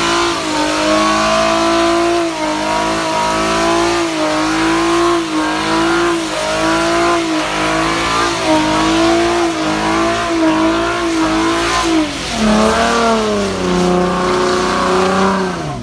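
Car doing a burnout, its engine held at high revs with the pitch wavering up and down about once a second. Near the end the revs fall away.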